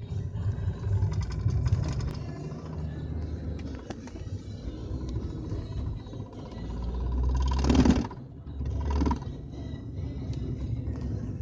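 BMW 320d E46's four-cylinder diesel engine pulling under acceleration in a low gear on a slight incline, with the noise under acceleration whose cause the owner cannot identify. It builds to a loud burst about two-thirds through that cuts off suddenly, followed by a shorter burst about a second later.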